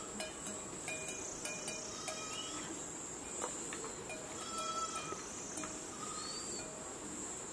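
Insects droning in a steady high-pitched hum, with short faint calls breaking in every second or so.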